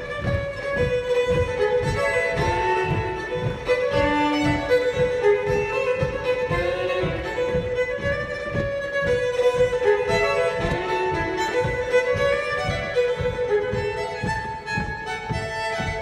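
Solo fiddle playing a traditional dance tune in quick running notes, with a regular low thump keeping time underneath.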